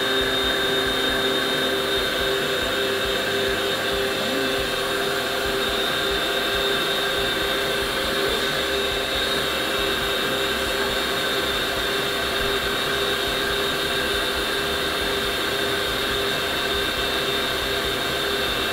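Electric stand mixer running steadily, its whisk beating warmed egg whites and sugar for glaze icing. The motor makes an even hum with a few held tones.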